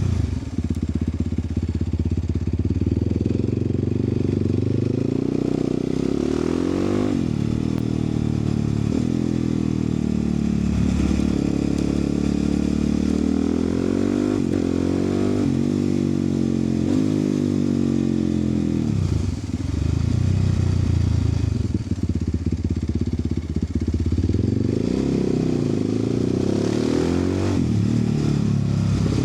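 Vehicle engine and exhaust under hard acceleration. The revs climb and then drop back sharply several times as it shifts up through the gears.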